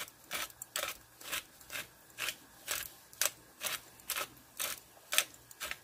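Stainless steel pepper mill grinding black peppercorns, twisted back and forth by hand in a steady rhythm of about two crisp grinding strokes a second.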